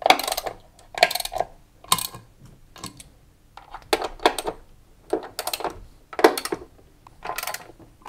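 Small metal washers and screws clinking as they are handled over a washing machine's concrete counterweight: a short metallic jingle roughly once a second.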